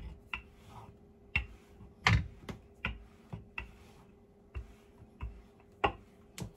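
Wooden rolling pin clacking and knocking on a wooden cutting board as dough is rolled out: about a dozen sharp, irregular clicks, the loudest about two seconds in and near the end.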